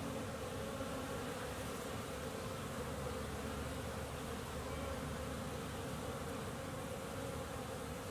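Honeybees buzzing in a steady, even hum at the hive entrance, flying out on winter cleansing flights.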